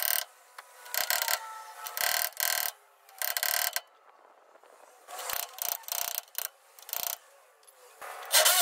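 Corded hammer drill boring out steel ball-joint rivets, sped up tenfold so it comes in quick, high-pitched bursts with short pauses between. It turns loud and continuous near the end.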